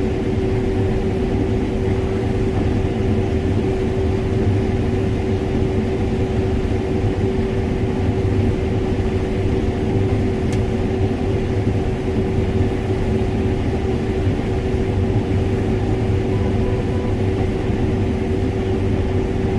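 Combine harvester running steadily while harvesting corn: an even engine drone with a constant whine.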